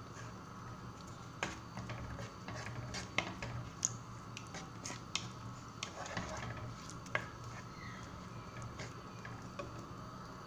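Wooden spoon stirring onions, tomato and spices frying in oil in a pot, with irregular sharp clicks and knocks of the spoon against the pot.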